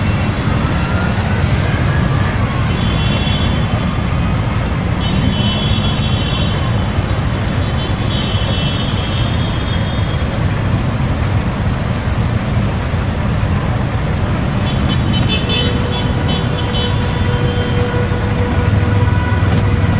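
Many motorcycles riding past slowly in a procession, their engines running together steadily, with horn toots held for a second or two several times along the way.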